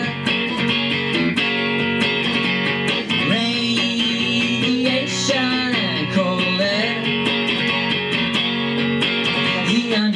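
Live song: a man singing to his own strummed electric guitar.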